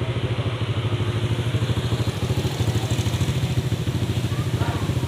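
An engine idling steadily, with an even, fast pulsing beat.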